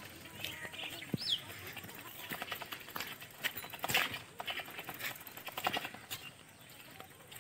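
Irregular clicking, crunching and rattling of a bicycle being wheeled on foot over a rough dirt path strewn with dry leaves, with one short falling bird call about a second in.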